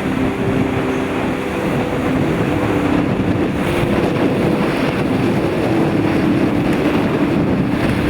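Strong storm wind, a dense steady rush, with sustained low notes of background music under it.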